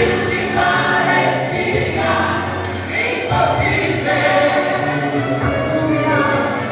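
A gospel vocal group singing together over instrumental accompaniment, with sustained sung lines above a steady bass.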